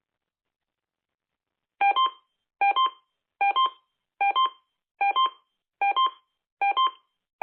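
Emergency Alert System alert beeps: a quick two-note electronic beep repeating about every 0.8 seconds, starting about two seconds in.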